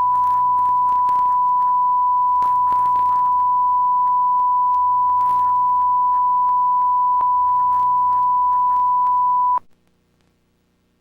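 A loud, steady electronic sine tone of one unbroken pitch near 1 kHz, held for about nine and a half seconds and then cut off abruptly. Faint crackles and a low hum run beneath it.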